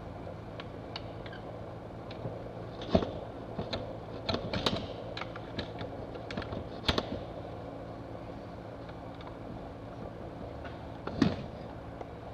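Screwdriver prying at the seam of a BRP E-TEC 800 two-stroke aluminium crankcase: irregular metal-on-metal clicks and taps, with the loudest knocks about three seconds in and near the end. The case halves are held only by gasket glue and the locating dowels. A steady low hum runs underneath.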